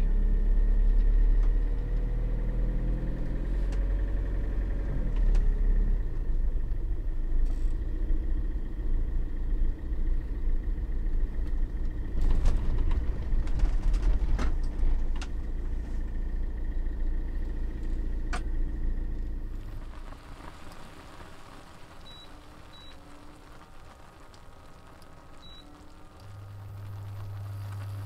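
Engine and road rumble inside a motorhome's cab as it drives. The engine pitch rises over the first few seconds as it accelerates, with a few light knocks later. About twenty seconds in the rumble gives way to a quieter background, with a steady low hum near the end.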